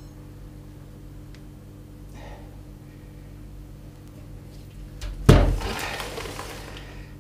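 A single heavy thump about five seconds in, with a rattling tail that fades over a second or so, as a large carp hanging from a hand scale knocks against a stainless-steel kitchen sink. A steady low hum runs underneath.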